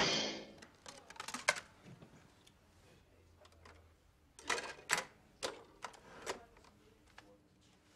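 Plastic CD jewel cases clicking and clacking as they are handled, with a few sharp clicks about a second in and a tighter run of them in the second half as a disc is put into a compact hi-fi's CD player. Music cuts off at the very start.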